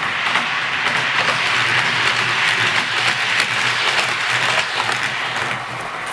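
00 gauge model train rolling past on its track: a dense, steady rattle of small wheels over the rails, with a faint low hum underneath.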